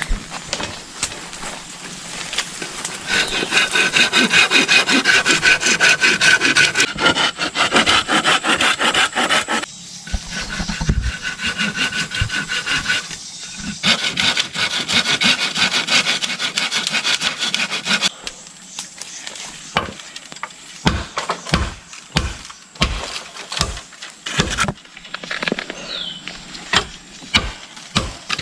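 A hand saw cutting through bamboo in rapid back-and-forth strokes, in two long runs with a short pause between, the cut ringing with a steady tone. In the last third the sawing stops and separate sharp knocks follow at uneven intervals.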